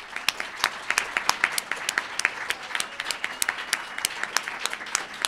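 Audience applauding: a dense patter of many hand claps, with a few near claps standing out sharply.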